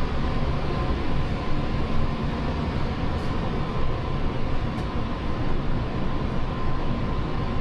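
Air-conditioning unit running: a steady low rumble and hiss with a faint constant hum.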